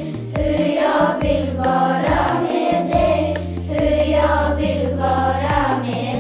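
A choir sings a hymn over instrumental backing, with held bass notes and a light, regular percussion tick.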